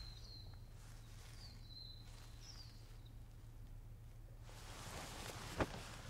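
Quiet room tone with a low hum and a few faint, high bird-like chirps in the first half; near the end a short rush of noise ends in a sharp click.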